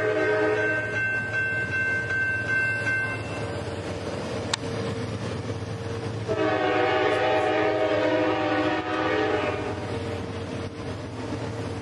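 Diesel locomotive air horn sounding a chord of several steady tones: the chord breaks off within the first second while one higher tone holds to about three seconds in. A long blast follows from about six to nine and a half seconds in, over a steady low rumble, with a single sharp click about four and a half seconds in.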